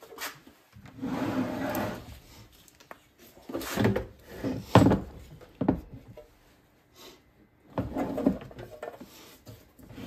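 Drill press belt-guard cover being opened and handled as the head sits on a bench top: several stretches of scraping and rubbing, with a few sharp clicks. The loudest click comes about five seconds in.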